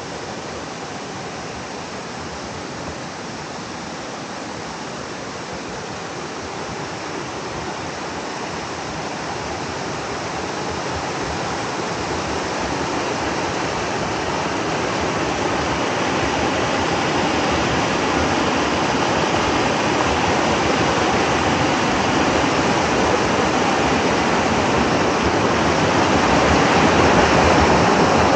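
Creek water rushing over a low rock ledge in a small cascade: a steady rush that grows gradually louder and is loudest near the end.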